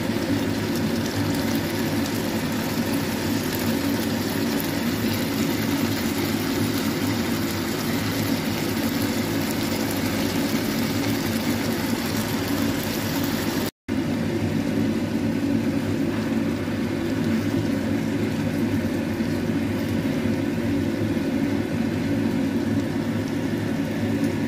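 A steady whir of a fan or small motor, broken by a brief dropout about 14 seconds in.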